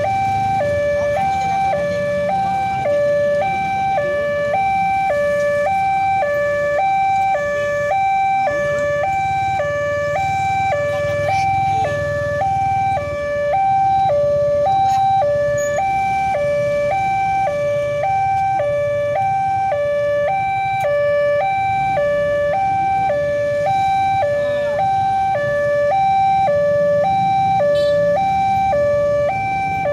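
Electronic two-tone warning alarm of a railway level crossing, alternating high and low about once a second without a break: the barriers are down and a train is approaching. A low rumble of waiting traffic runs underneath.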